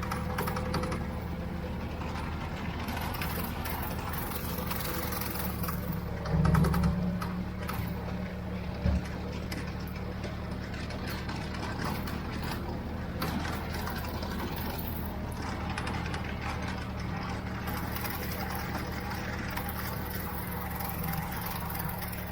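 Ford 3600 tractor's three-cylinder engine running steadily while driving a Brush King rotary brush mower, with a brief louder surge about six and a half seconds in and a short knock near nine seconds.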